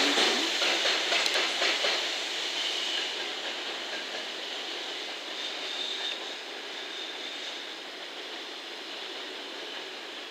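Container freight train running away on the rails, with a JR Freight EF210 electric locomotive as the banker at its tail, steadily fading into the distance. Wheels clatter early on, and a faint high wheel squeal comes on the curve about halfway through.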